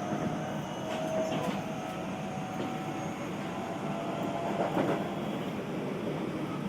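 Passenger-cabin running sound of a Keio new 5000 series electric train at speed: steady rolling noise with faint tones, and a few pairs of clicks as the wheels pass over rail joints.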